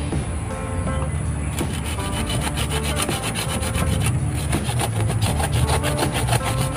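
A hand saw cutting through the woody roots at the base of a gamal (Gliricidia) tree in quick back-and-forth strokes, starting about a second and a half in and pausing briefly past the middle.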